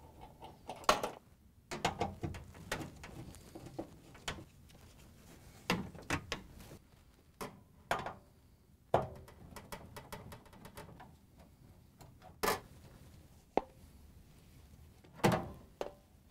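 Scattered clicks, knocks and scrapes of hand work inside a Whirlpool Duet dryer: a nut driver turning out the duct bracket's screws, then the plastic lint duct housing knocking as it is worked loose and pulled out. The sharpest knocks come a few seconds apart.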